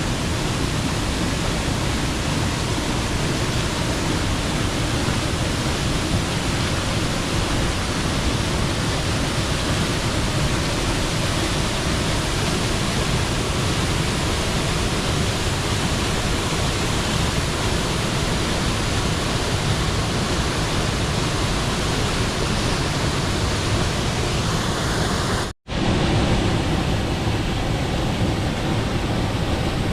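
Waterfall running with heavy water after monsoon rains, a steady loud rush of noise. The sound drops out for an instant near the end, then carries on the same.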